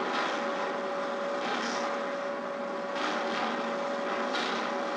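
Drop-forge shop noise: a steady machinery din under a thin constant hum, with a hiss that swells about every second and a half.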